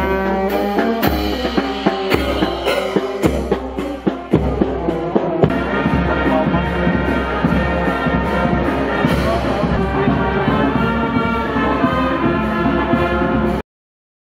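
Street marching band playing a brass tune: saxophones and trumpets over drum beats and cymbal clashes about twice a second. About five seconds in the sound shifts to a denser, steadier stretch of brass music.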